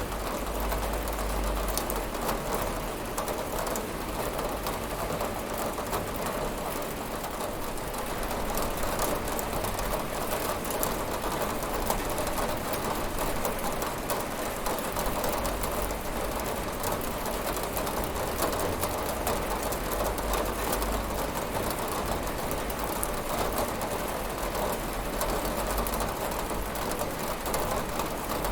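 Steady rain pattering on a window pane, a dense even hiss of drops with many small taps and no thunder.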